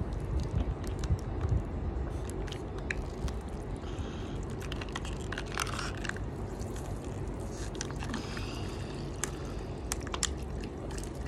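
Thin plastic water bottle crinkling and crackling in irregular snaps as it is squeezed and crushed while someone chugs from it, with slurping and water dripping.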